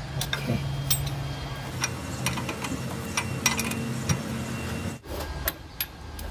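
Socket ratchet clicking in scattered, uneven ticks as it is swung back and forth on a bolt, over a steady low hum that stops about five seconds in.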